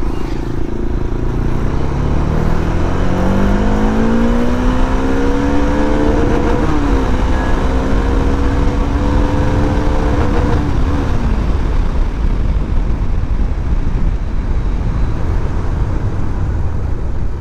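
Motorcycle riding away: its engine note rises steadily for about five seconds as it accelerates, holds level, then drops away about eleven seconds in, over a heavy low rumble.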